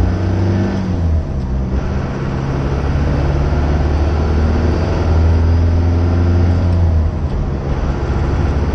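Cummins turbo-diesel in a Ford F-150 pickup pulling through the gears, heard from inside the cab. The engine note drops at a shift about a second in, climbs steadily for several seconds, then drops again at the next shift near the end.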